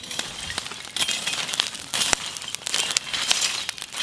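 A long-handled metal slotted spoon scraping and pushing lump charcoal around a pit fire, the hard pieces clinking and rattling against each other in an irregular run of sharp clicks, with the burning coals crackling.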